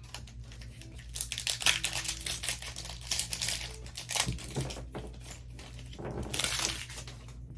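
Foil Pokémon booster pack wrapper crinkling as it is handled and torn open, in two spells of rustling, the second about six seconds in.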